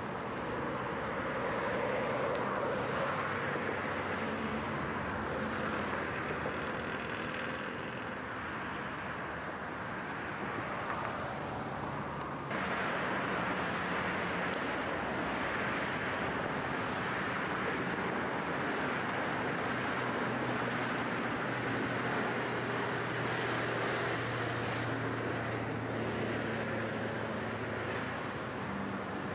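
Steady noise of a rail yard heard through a camcorder microphone: an even rumble and hiss with a faint low engine hum under it. It turns abruptly louder and brighter about twelve seconds in.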